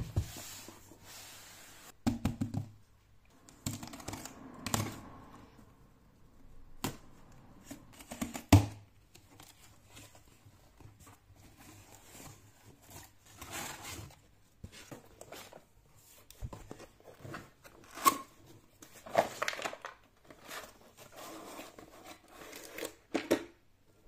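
Cardboard shipping box being opened and unpacked by hand: cardboard tearing and rustling and plastic wrapping crinkling, with irregular knocks as the flaps and items are handled. A sharp knock about eight seconds in is the loudest.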